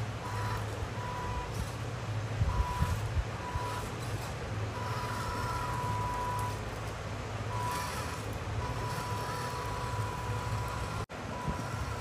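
Electronic reverse-warning beeper of an RC truck's sound module sounding at one steady pitch, in short beeps and longer held tones, over a steady low hum.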